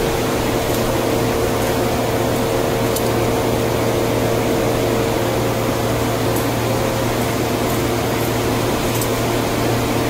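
Steady rush and hum of a glassblowing hot shop's gas burners and blower fans, unchanging throughout, with a few faint ticks of hand tools on the glass.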